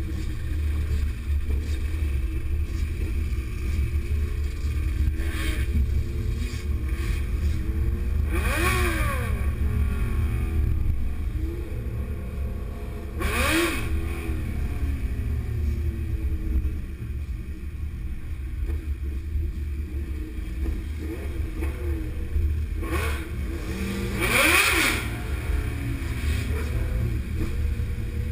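A group of motorcycles riding along, their engines revving up and easing off three times, at about a third of the way in, in the middle and near the end, over a steady low rumble.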